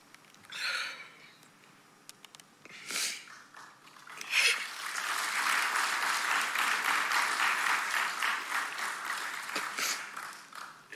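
Two sharp, tearful breaths or sniffs close to the lectern microphone, then audience applause that sets in about four seconds in and dies away near the end.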